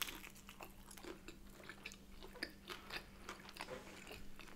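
Faint close-miked biting and chewing of a soft sesame brioche bagel sandwich filled with bacon and cream cheese. A bite comes at the start, then a string of small, irregular mouth clicks as it is chewed.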